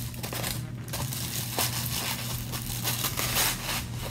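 Plastic wrapping and a paper bag crinkling and rustling as they are handled, in irregular crackles.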